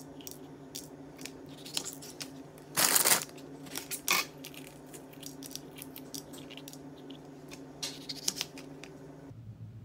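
Kitchen knife cutting mini sweet peppers on a cutting board: scattered light taps of the blade on the board and a crisp crunching cut through the pepper about three seconds in, with a smaller one a second later. A faint steady low hum runs underneath and stops shortly before the end.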